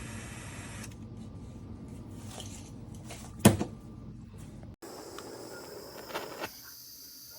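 Light handling noises with one sharp, loud click about halfway through and a couple of softer clicks near the end.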